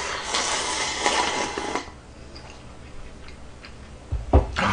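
A person slurping instant ramen noodles from a bowl held at the mouth, a loud rush of slurping for about two seconds. It is followed by quiet chewing, and a short thump and burst of breath or slurp near the end.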